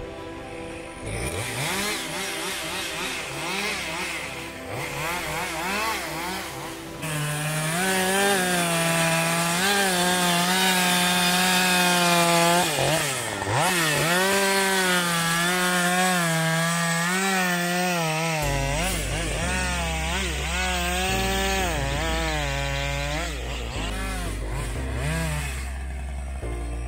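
Two-stroke chainsaw running at high revs and cutting wood, its engine note wavering up and down as the chain bites. It gets louder about a quarter of the way in and drops away briefly near the middle. A low steady engine rumble joins in the last third.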